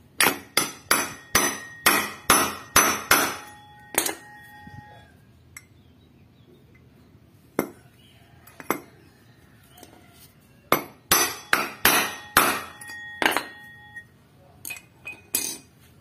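Hammer blows on a steel drift, driving a new bearing into a scooter's CVT driven pulley until it seats; each metal-on-metal strike rings briefly. A quick run of about ten blows, two single blows after a pause, then another run of about eight and a few lighter taps.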